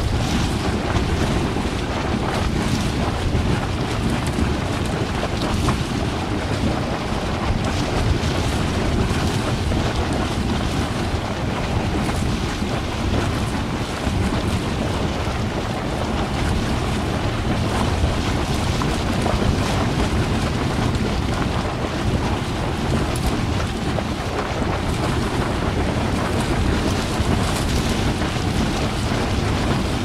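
Large hot spring gurgling constantly: a steady, dense churn of water, heaviest in the low range, without breaks.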